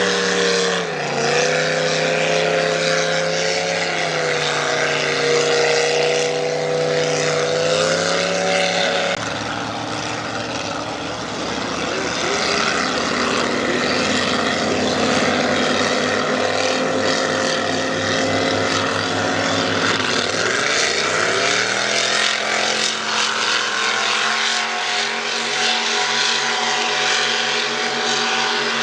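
Racing boat engines running hard, a loud steady drone whose pitch wavers. About nine seconds in the sound changes, and around twenty seconds in the engine note rises in pitch and then holds steady.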